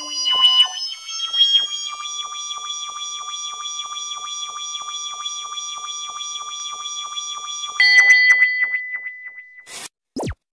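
Synthesized loading-bar sound effect: steady electronic tones with a pulsing beep about three times a second. About eight seconds in it jumps to a new, louder tone that fades away, followed by a quick swoosh near the end.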